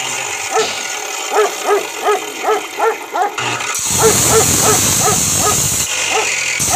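A dog barking in a quick series, about three barks a second. From about four seconds in, a louder rushing noise runs under the barks for about two seconds.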